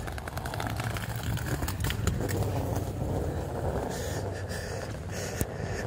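City street ambience: a steady low rumble of traffic and outdoor noise, with scattered light clicks, including a sharp one about five and a half seconds in.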